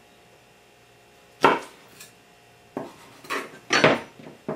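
A chef's knife knocking and clacking against a plastic cutting board while pearl onions are trimmed, about six sharp knocks, the loudest about one and a half seconds in and a quick run of them near the end.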